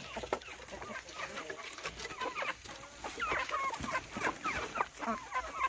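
A flock of village chickens, hens and roosters, clucking and calling in many short, overlapping calls that grow busier about halfway through. The flock is agitated, expecting to be fed.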